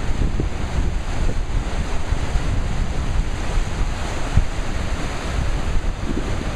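Ocean surf washing and churning around rocks as a steady rush, with wind buffeting the microphone in irregular low rumbles.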